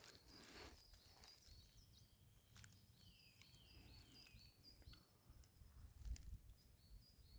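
Faint songbird calling: runs of short, high repeated notes, about three a second, pausing for a couple of seconds before starting again near the end. A soft snap or knock about six seconds in.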